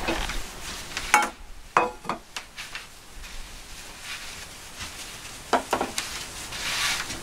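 Stainless steel camp cups and a metal mess tin being set down on a counter: a few sharp metal clinks and knocks in the first two and a half seconds, and a second cluster about five and a half seconds in.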